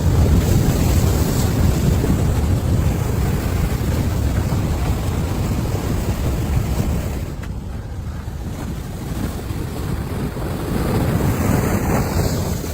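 Storm wind buffeting the microphone over rough, churning water. The noise eases and changes character about seven seconds in, then builds again near the end.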